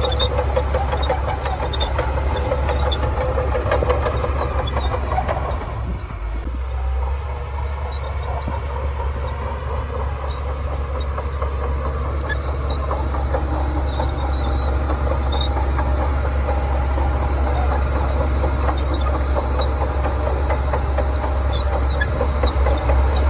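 Shantui DH17C2 crawler bulldozer's diesel engine running steadily while working. Its note drops for a moment about six seconds in, then picks back up.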